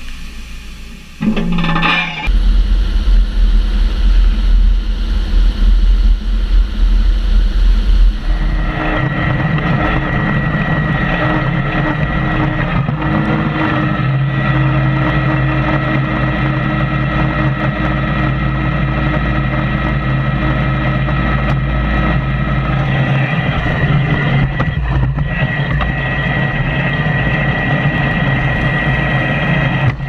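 A tractor towing a Welger RP535 round baler, with engine and baler machinery running steadily. A deep rumble dominates the first several seconds.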